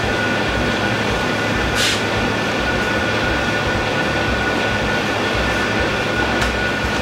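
Steady loud machine noise of a restaurant kitchen, ventilation running with a thin steady whine on top. One brief light clink about two seconds in.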